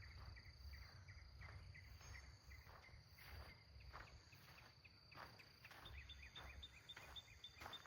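Faint insects, crickets or katydids, chirping about three times a second over a thin steady high insect drone, with a low rumble of wind or handling noise underneath.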